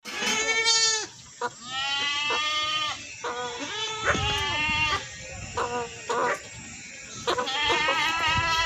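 Goats bleating: a run of about five or six wavering calls, each a second or so long, with two calls overlapping near the middle.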